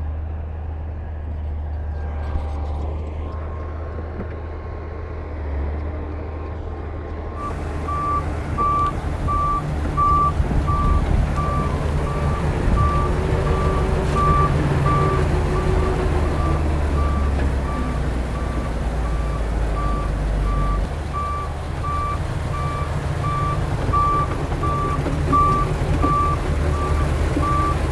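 Heavy diesel earthmoving machinery running with a steady low rumble. About seven seconds in, a reversing alarm starts beeping steadily, roughly one and a half beeps a second, as a machine backs up.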